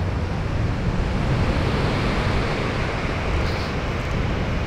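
Steady rush of ocean surf, with wind buffeting the microphone and adding a low rumble.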